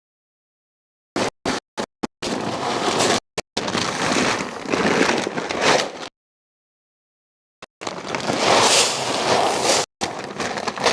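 Dry grain feed being poured and scooped into a feed can: a few short sharp rattles, then two long stretches of rustling, crackling pour with a pause between them.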